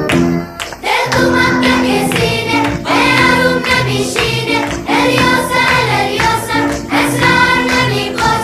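Background music: a song with a group of voices singing over instruments.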